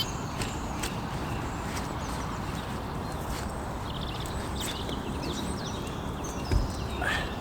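Steady low outdoor rumble, with faint bird chirps and a few light scattered clicks.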